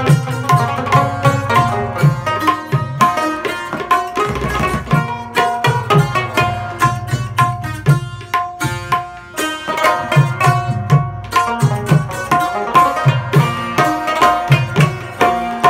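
Tabla played with fast rhythmic strokes and deep bass-drum thumps, accompanying a plucked-string melody on rubab and sitar.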